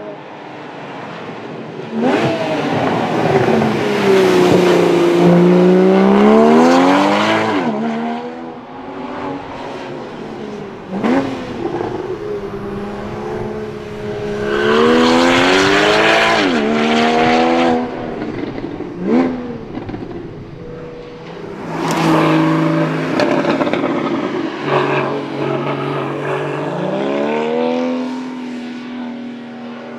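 2015 Porsche Boxster GTS's flat-six engine revving hard as the car accelerates through the gears, its pitch climbing and then dropping back at each shift. It comes in three loud bursts, near the start, around the middle and about two-thirds of the way through, with quieter running between.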